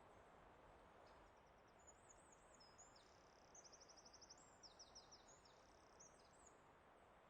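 Faint songbird singing a string of high chirps and quick trills of rapidly repeated notes, over a soft steady background hiss.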